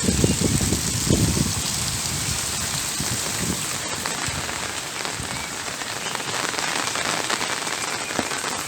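Rain falling steadily on a roof, with a few dull low thuds in the first second and a half and again around three seconds in.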